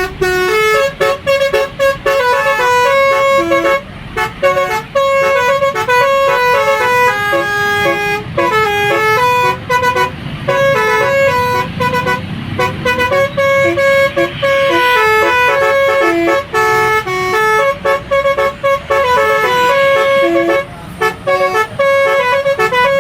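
Indonesian 'telolet' bus horn, a multi-note musical air horn, playing a long melody of held and changing notes with short breaks between phrases.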